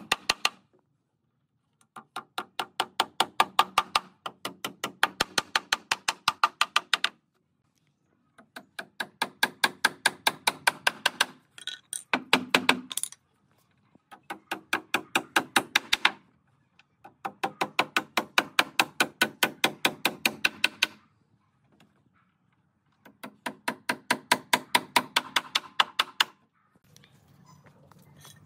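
Rapid trains of sharp knocks, about seven a second, in bursts of two to four seconds separated by short pauses.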